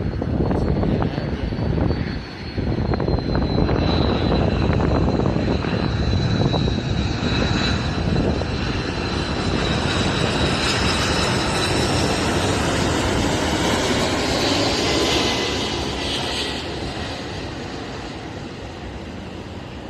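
Jet airliner passing close by: a loud engine roar with a high fan whine that slowly falls in pitch, fading away over the last few seconds.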